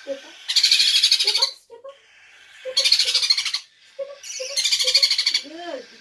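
Hand-fed parrot chicks begging with three harsh, rapidly pulsing raspy hisses, each about a second long, with short low notes in between.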